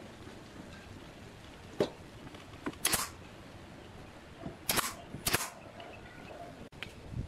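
Five sharp, separate strikes of woodworking work on a wooden basket. The two loudest come about half a second apart a little past the middle.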